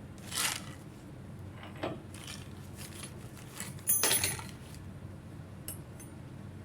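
Small metal parts and tools clinking and clattering as they are handled and set down, in several short bursts, the loudest about four seconds in with a brief metallic ring.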